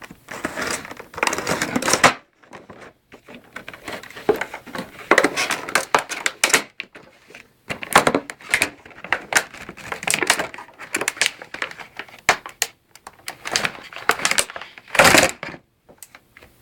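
Headphone packaging being handled and opened: irregular rustling and crinkling with many sharp clicks, the loudest burst near the end.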